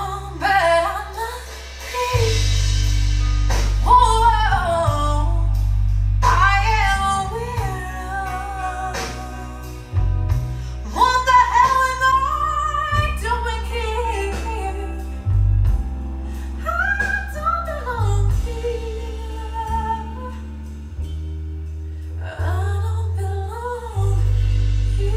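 A song with a melodic sung vocal over loud, sustained deep bass notes, played back through vintage budget bookshelf loudspeakers and a Magnat active subwoofer.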